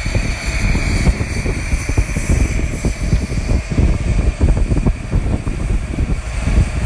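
Northern Chief, a 15-inch-gauge steam locomotive, standing at full boiler pressure with its safety valves just feathering: a steady hiss of steam over an uneven low rumble.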